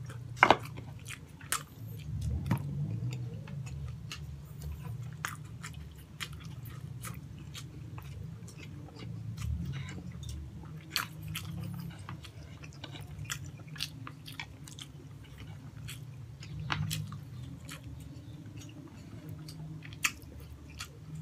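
Close-miked mouth sounds of a person eating braised pork hock and rice by hand: steady chewing with many short wet smacks and clicks of the lips and sticky gelatinous skin, spaced irregularly. The sharpest smack comes about half a second in.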